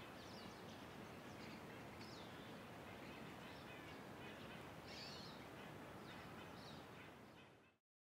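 Faint outdoor ambience: a low steady hiss with scattered short, high chirps, fading out to silence near the end.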